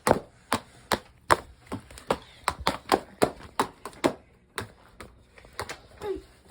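Small balloons popping one after another, about twenty sharp pops at an irregular pace of roughly three a second.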